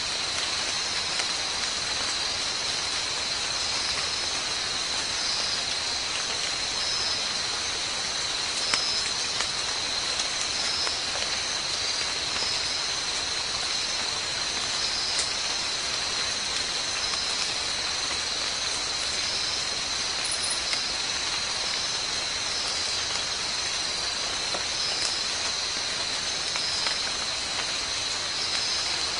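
Steady high-pitched insect drone over an even hiss, with faint chirps repeating every second or so and a few small clicks.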